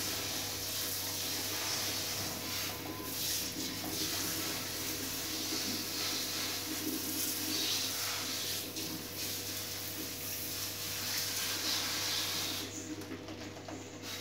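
Water hissing steadily from a handheld shower sprayer as it rinses a plastic AC filter over a washbasin, stopping shortly before the end.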